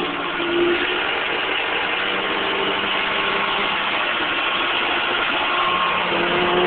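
Engine of a Lull telehandler (large rough-terrain forklift) running steadily at idle.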